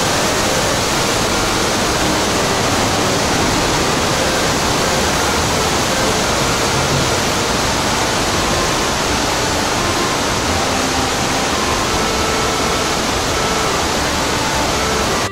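Steady, loud rush of Fukiware Falls, the waterfall's water pouring and churning without a break.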